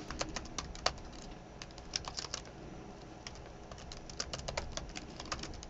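Computer keyboard typing: quick runs of keystrokes with short pauses between them.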